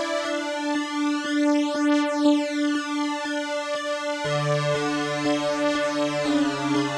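Electronic background music played on synthesizer keys, with held chord notes; a low bass part comes in a little over four seconds in.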